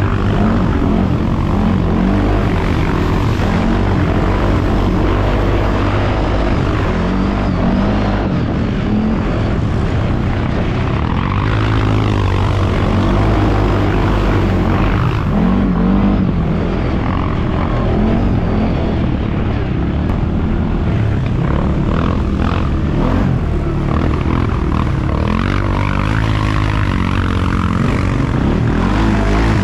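ATV engine running under load while driving through deep mud, its revs rising and falling several times.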